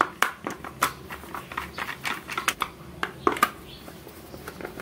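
A screwdriver turning screws into the back of a plastic power strip, giving an irregular run of clicks and small plastic knocks.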